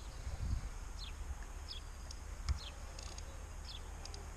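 Small birds calling in a series of short, high, falling chirps over a steady low rumble, with one sharp click about two and a half seconds in.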